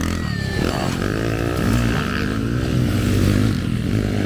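Motocross dirt bike engine revving, its pitch climbing and dropping again and again as the rider works the throttle, with people talking over it.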